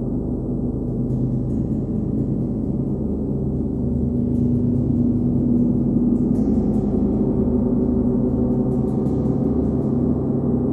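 A 39-inch Nepalese wind gong rings in a continuous dense wash of many overlapping low tones as it is played with a hard rubber ball mallet. The sound swells slightly a few seconds in.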